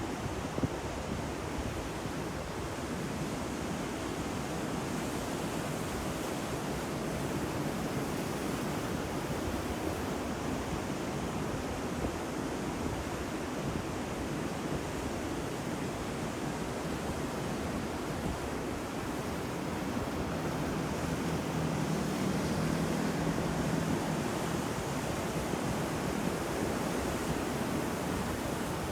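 Ocean surf: heavy waves breaking and washing in a steady, continuous rush, swelling a little louder about two-thirds of the way through.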